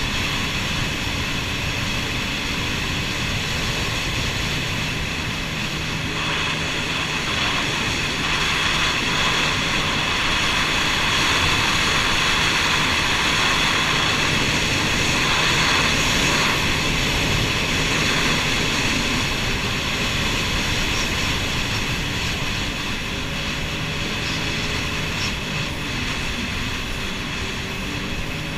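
Jet ski engine running steadily, growing a little louder for several seconds in the middle.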